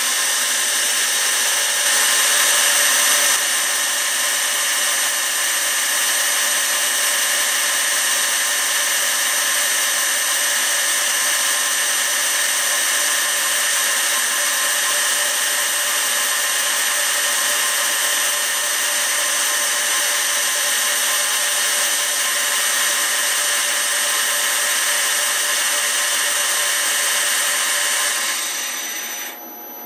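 Precision Matthews PM-727M mill's spindle motor and poly-V belt drive running steadily at 3,000 RPM: a loud, even whine with several high steady tones. It cuts off near the end as the motor is switched off.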